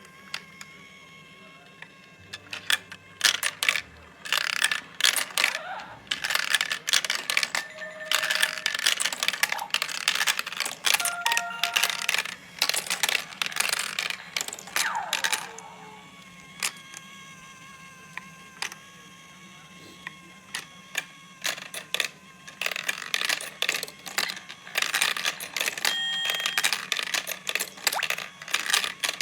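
Plastic marbles clattering and rolling down a plastic marble-run track fed by a motorized chain lift: rapid irregular clicks and rattles in two busy stretches, thinning out for several seconds in the middle.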